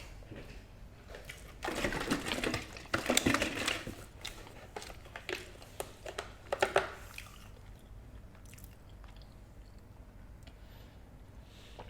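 A person chewing and biting food close to the microphone, in loud moist crackly clusters during the first half, then fainter chewing.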